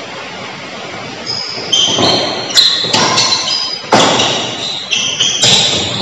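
Badminton rally in an echoing sports hall: sharp racket-on-shuttlecock strikes and thuds of footwork, with short high squeaks of shoes on the court, starting a little under two seconds in over a steady hiss.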